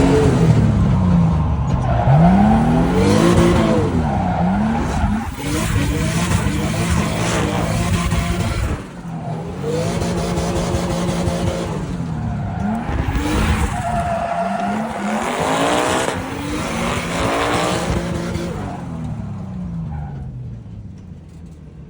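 Ford Mustang S550's V8 revving up and down again and again under hard driving, with tyre squeal, as when drifting. It starts suddenly and fades toward the end.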